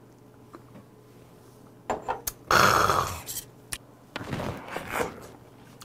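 Close-up eating sounds of a man eating gamjatang: a few small clicks, then a loud noisy burst of under a second from his mouth about two and a half seconds in, and more mouth and chewing noise near the end.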